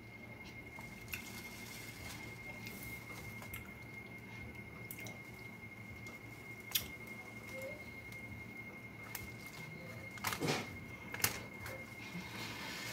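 Quiet wet chewing with scattered small lip smacks and squishes from eating a crispy chalupa, plus a louder noise about ten seconds in. A faint steady high whine sits under it all.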